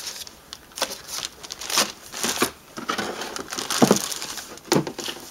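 Packaging rustling and crinkling in irregular bursts as a new welding helmet is lifted out of its box.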